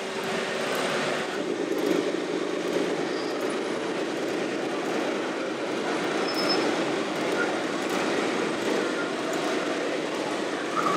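Radio-controlled scale construction machines running: a steady mechanical rattle with the whine of small electric motors and gearboxes.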